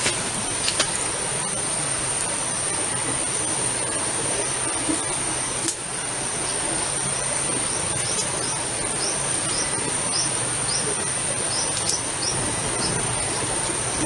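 Forest insects droning steadily at a high pitch, with a few sharp crackles from a wood campfire. In the second half a run of short high chirps repeats about twice a second.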